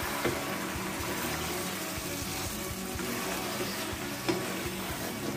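Chicken curry and bottle gourd sizzling in an aluminium pot while a wooden spatula stirs them. The stirring sets off a steady hiss and a few scraping knocks against the pot, the loudest about four seconds in.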